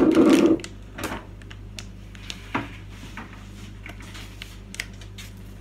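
A loud thump right at the start, then scattered light clicks and knocks of groceries and jars being handled and moved about on kitchen pantry shelves.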